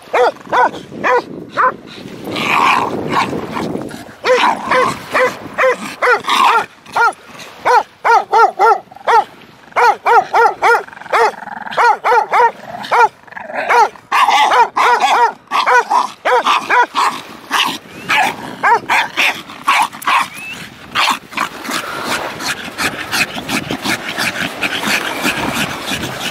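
A dog whining and yipping in quick short calls, several a second in places, over the fast scraping of paws digging in sand.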